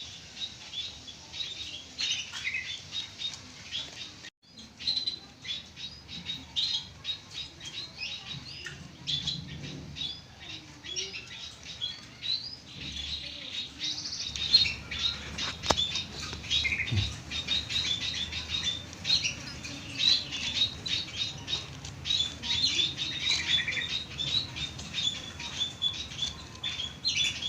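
Baby squirrel squeaking and chirping over and over in short, high-pitched calls, several a second, with a brief break about four seconds in.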